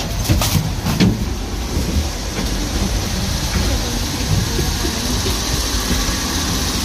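Steady low rumble of a stationary diesel train idling, heard inside the passenger carriage, with passengers' voices in the background. A few sharp knocks in the first second, from footsteps on the metal vestibule floor plates.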